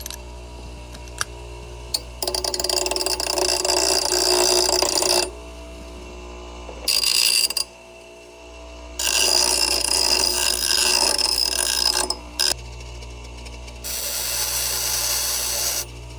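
Grinder grinding down a cut steel angle bracket in several bursts of a few seconds each, its motor running steadily between them.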